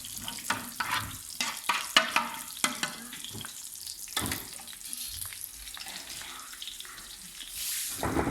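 Palm sugar and ginger being stirred in a wok as the sugar melts over a low flame: the utensil scrapes and knocks against the pan, busily in the first three seconds and more sparsely after, over a soft sizzle.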